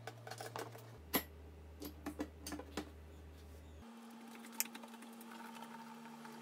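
Faint scattered clicks and taps of a hand screwdriver driving a screw through a metal angle bracket into a particleboard drawer side, over a low steady hum.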